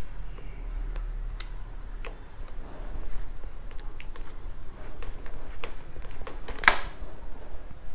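Scattered small metallic clicks and taps of a screwdriver and hands working at the top of a Royal Enfield Bullet 350's front fork, with one sharper, louder click about a second before the end.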